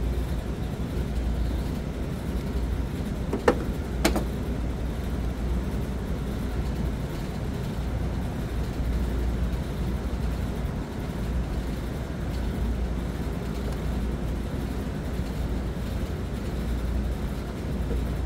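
Steady low rumble with two sharp clicks about three and a half and four seconds in, from hands and a screwdriver working wires into a motor starter's terminals in an electrical control panel.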